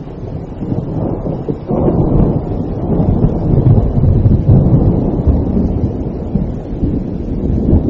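Rolling thunder rumbling over rain, swelling suddenly about two seconds in and loudest midway before easing off a little.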